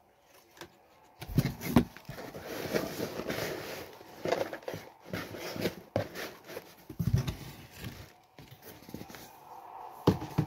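A paper box being handled and turned over, with rustling and several soft knocks and thumps.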